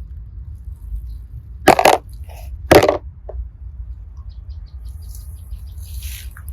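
Slime with small mix-ins being squished and pressed by hand: two loud wet squelches, about two and three seconds in, followed by faint small crackles and pops.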